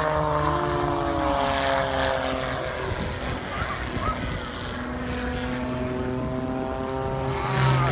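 A single-engine propeller aerobatic plane's engine drones steadily through a climbing, curving manoeuvre. Its pitch slides slowly down over the first few seconds, then holds.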